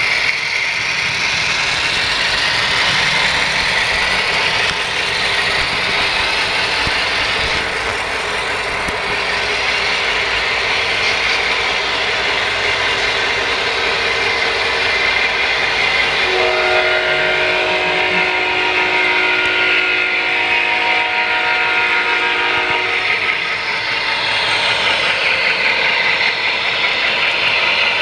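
HO scale model diesel locomotives running on the layout with a steady running noise. About two-thirds of the way through, a multi-tone locomotive horn sounds as a held chord for about six seconds.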